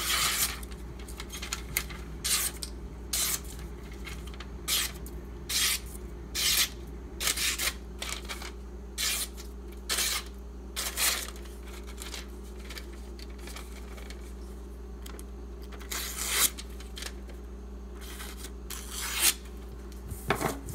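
Ganzo folding knife with a 440C steel blade slicing through a paper flyer, one quick papery hiss per cut, about one cut a second, testing the freshly sharpened edge.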